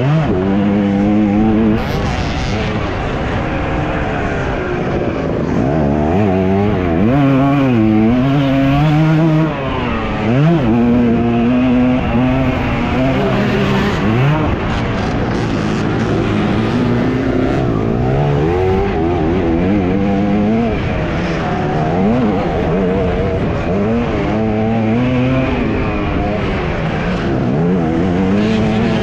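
Motocross bike engine running hard under the rider, its pitch rising and falling again and again as the throttle is opened and closed through the track.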